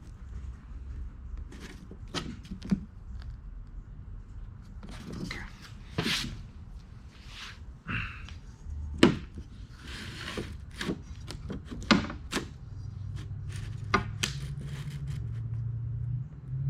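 Scattered knocks, clicks and rubbing of a tape measure and pencil being handled on a wooden board while a template is measured and marked out.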